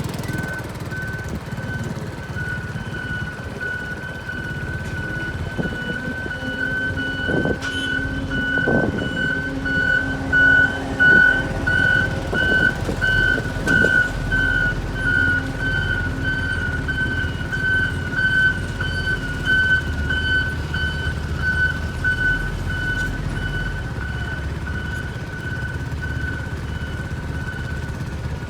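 Heavy road-paving machinery engines running over a steady high-pitched electronic warning tone from a machine's alarm, which pulses in loudness through the middle.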